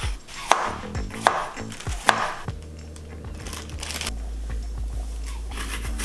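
Chef's knife slicing small tomatoes on a wooden cutting board: three sharp knocks of the blade on the board, about a second apart, in the first half. After that, quiet background music with a steady low bass.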